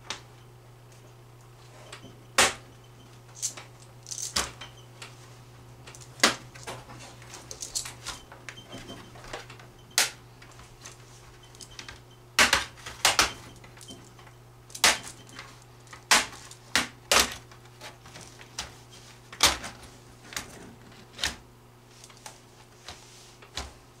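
Irregular sharp clicks and snaps of an Acer E5-521 laptop's plastic case being pried apart, its clips letting go one by one, over a steady low hum.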